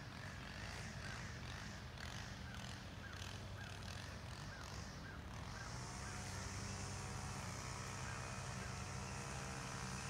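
A motor running steadily with a hum. About halfway through, a steady higher whine and hiss join it and hold. Over the first half, short high calls repeat about twice a second.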